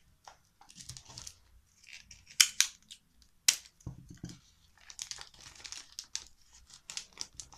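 Clear plastic cover crinkling and rustling as it is folded around a small souvenir, like gift wrap, with sharper crackles about two and a half and three and a half seconds in.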